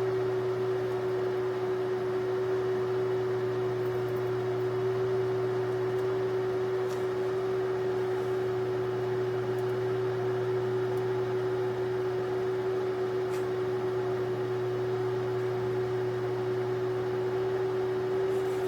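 Steady machine hum: one constant mid-pitched tone over a low drone and faint hiss, unchanging throughout.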